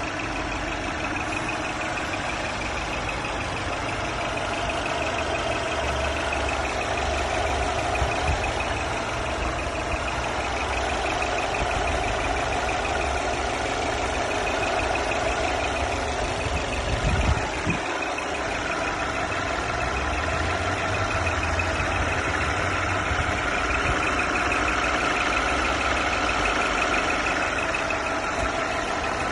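Mercedes E350 Coupé engine running at idle with a high whistle over the engine note; a second, lower whistle joins about two-thirds of the way in. A single brief thump sounds a little past halfway.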